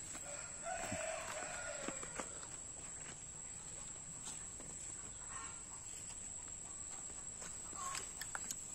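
Footsteps and scattered light knocks as a wheelbarrow is pushed along a dirt path, with a faint call about a second in and a steady high whine underneath.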